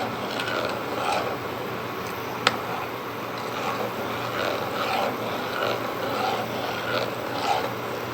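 A spoon stirring a pan of milk and carrot puree, with soft repeated scraping against the pan, dissolving the added sugar; one sharp tap about two and a half seconds in, over a steady low hum.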